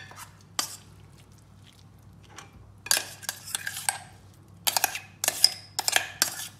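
Metal spoon scraping and clinking against the inside of a stainless steel mixer-grinder jar as ground masala paste is scraped out. One knock comes about half a second in, then scrapes around the third second, then a quick run of clinks near the end.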